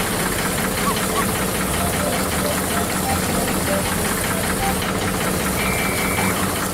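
A small engine of a miniature construction machine running steadily with a rapid, even knocking.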